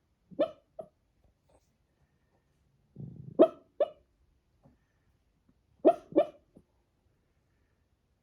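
Pekingese puppy barking in its sleep while dreaming: three bouts of short yips, each a quick pair, a few seconds apart.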